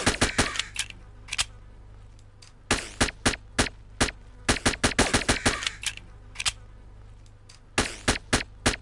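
Suppressed Heckler & Koch USP pistol firing in quick strings of several shots a second, with pauses of about a second between the strings, over a low steady hum.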